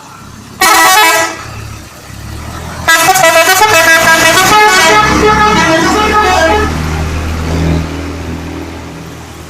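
Bus telolet horn, a multi-tone musical horn. It gives one short loud blast about half a second in, then a longer melodic run of changing notes lasting nearly four seconds, with the bus engine running underneath and fading afterwards.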